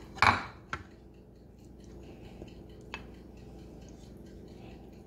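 Light kitchen clatter as a silicone pastry brush dabs garlic butter onto dough balls in a metal baking pan: a short brushing sound right at the start, then a few soft clicks and knocks, the last about three seconds in.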